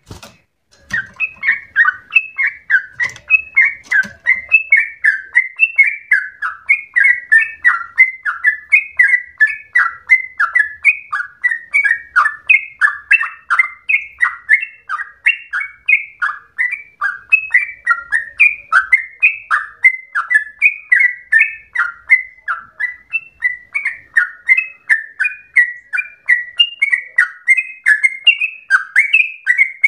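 Yellow-vented bulbul (trucukan) singing a long, unbroken rolling song. It is a fast, bubbly run of short slurred notes, several a second, that picks up again after a brief break about a second in.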